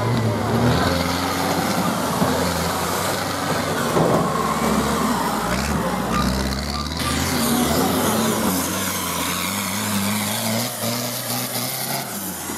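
Home-built racing tractor engines revving hard, their pitch rising and falling as they labour along a muddy track. The sound changes abruptly about seven seconds in.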